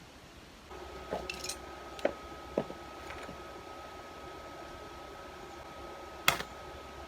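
Makita inverter welding machine humming with a steady high whine that starts about a second in, with a few sharp metal clinks, one louder near the end.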